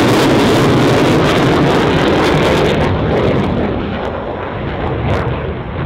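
Twin General Electric F414 turbofans of an F/A-18F Super Hornet in a display manoeuvre: a loud, steady jet rush that loses its hiss and fades from about three seconds in.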